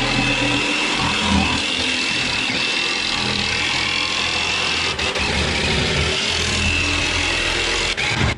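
A power tool running steadily, cut off briefly twice.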